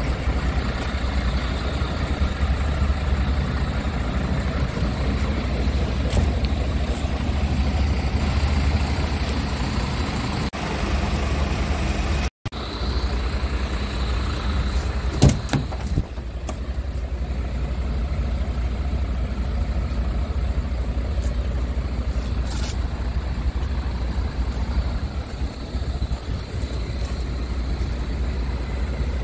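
Scania R tractor unit's diesel engine idling steadily, a deep even hum. A couple of short knocks sound about fifteen seconds in.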